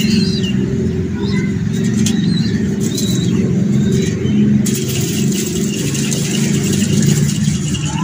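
A flock of pigeons cooing together in a dense, continuous low murmur, with short high chirps from smaller birds over it. A steady high hiss joins a little over halfway through.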